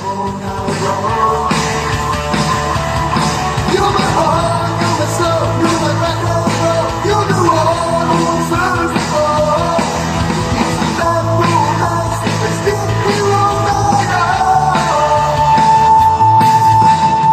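Rock music with singing, played loud through a pair of Sony bookshelf speakers driven by an Aiyima A07 MAX TPA3255 amplifier. It gets louder within the first second and then stays loud.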